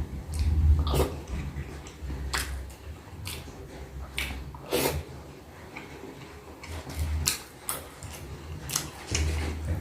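Close-miked mukbang eating sounds: chewing and mouth noises with scattered sharp clicks, over a low rumble that comes and goes.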